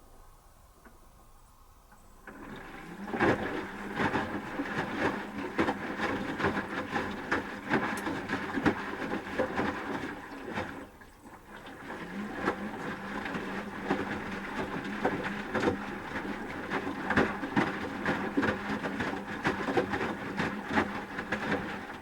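Asko Quattro W6098X washing machine in its wash phase, the motor turning the drum so the wet laundry tumbles with a hum and many small knocks. The drum starts about two seconds in, runs for about eight seconds, pauses briefly, then turns again.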